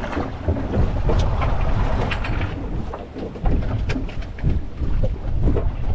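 Wind buffeting the microphone in a heavy low rumble, with scattered short knocks and splashes throughout.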